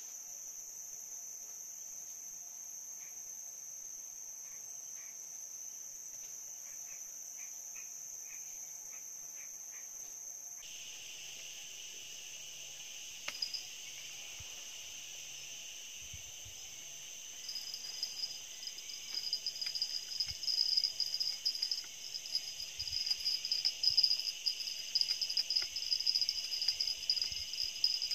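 Steady high-pitched insect chorus. About ten seconds in the chorus changes, and from about two-thirds through a louder, rapidly pulsing insect call joins it, with a brief knock in between.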